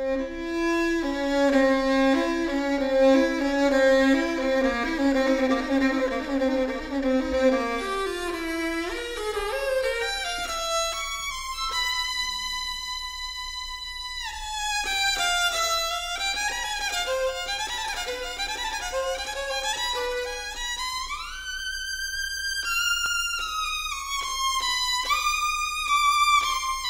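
Solo violin playing a virtuoso cadenza. Quick runs of low notes for the first eight seconds or so climb to long held high notes, with a sliding rise to a high sustained note about twenty seconds in.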